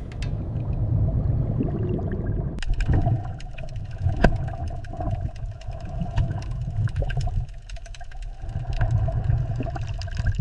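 Low, steady underwater rumble with scattered clicks and a faint held tone.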